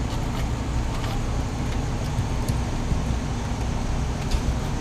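A motor engine running steadily with a low rumble, with a few light knocks scattered through it.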